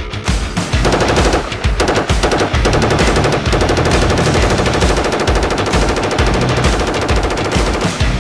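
DSArms WarZ Gunfighter AR-15 in 5.56x45mm NATO firing on full auto: long, rapid bursts broken by a couple of brief pauses.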